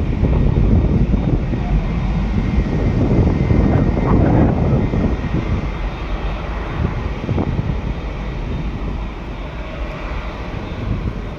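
Jet airliner engines, a loud low rumble with a faint high whine above it, easing off somewhat over the second half.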